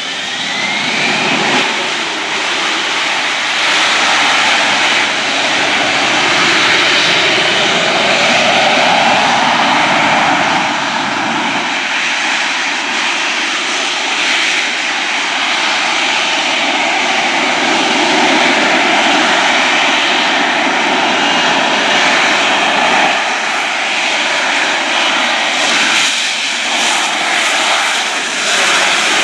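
Harrier jump jet's Pegasus turbofan engine running loudly at high power, a steady jet roar with a whine that rises in pitch in the first second or so.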